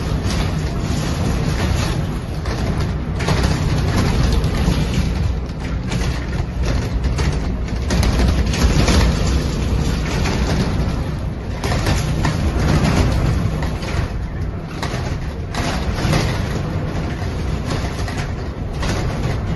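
Heavy rain pouring down with gusting wind, a loud, steady rush that swells slightly about eight and twelve seconds in.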